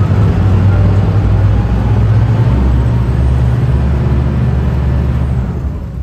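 Tour boat's engine running hard as the boat manoeuvres alongside a pier to dock: a loud, steady low rumble that eases slightly near the end.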